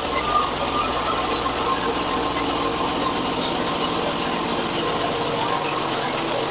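Portable bandsaw mill cutting through a log: its engine running steadily under load while the band blade saws through the wood.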